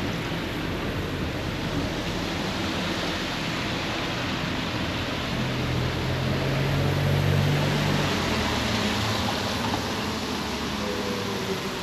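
Steady rushing outdoor noise with a motor vehicle passing; its low engine hum swells and fades a little past the middle.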